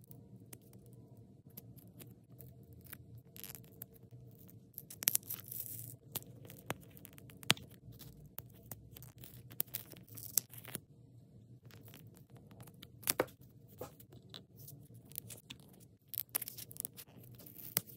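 Foil and paper wrapping on a miniature toy gum pack being slit with a craft knife and peeled and torn by hand, as scattered crinkles, tears and small clicks. The loudest tearing comes about five seconds in and again around thirteen seconds in.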